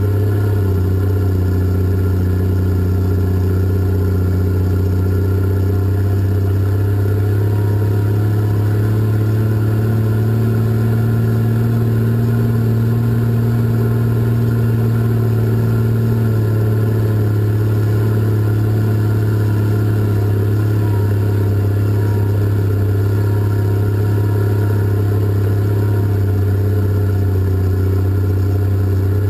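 Diesel engines of a twin-engine Cat 627 scraper running steadily under way, heard from the operator's cab as a loud constant drone, with slight shifts in engine note a few times.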